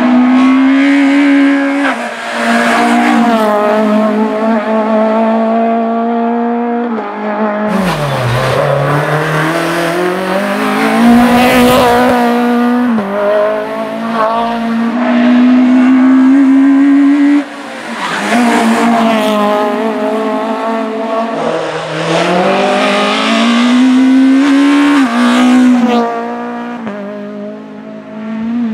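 Renault Clio RS race car's four-cylinder engine at high revs, pulling hard up through the gears: the pitch climbs steadily and drops back at each shift, about half a dozen times. Around eight seconds in the revs fall away low, then wind back up.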